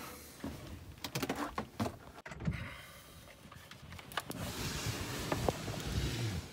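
Handling noise: scattered light knocks and clicks as bedding is shifted on a boat bunk, then a steadier fabric rustle from about four seconds in as the camera brushes against clothing.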